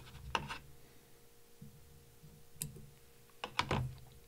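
A few light clicks and taps from hands and tools being handled at a fly-tying vise: a cluster about half a second in, one near the middle, and a quick run of clicks near the end.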